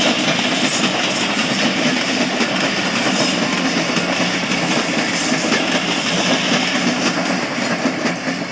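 Steady rumble and rattle of a moving vehicle, heard from on board.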